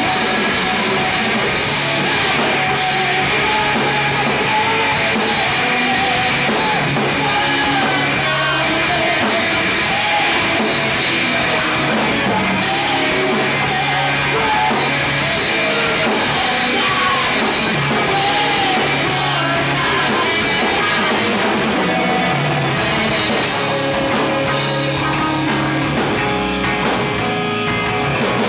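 Live heavy rock band playing loud: two distorted electric guitars, bass and a drum kit, with the singer's voice over them.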